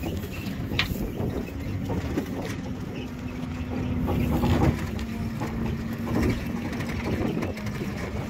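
Truck engine running with a steady hum as it rolls slowly over rough ground, with a low rumble underneath.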